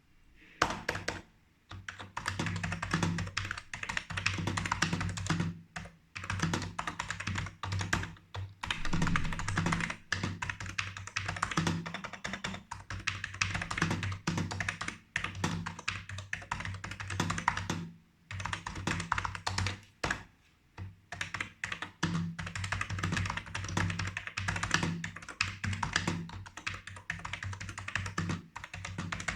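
Typing on a 1993 BTC 5149 keyboard: a fast, continuous clatter of keystrokes, stopping for about a second several times.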